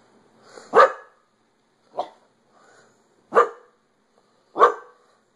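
A dog barking: four single barks about a second apart, the second one quieter. They are agitated alarm barks at a television, which the dog treats as a threat.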